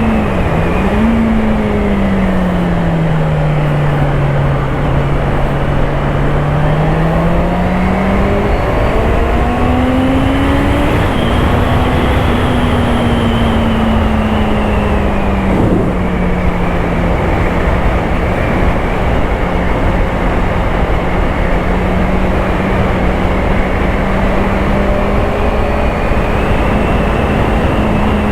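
Honda CBR650R's inline-four engine running under way, under heavy wind rush on the microphone. The engine note falls and rises over the first ten seconds or so, then holds nearly steady at a cruise.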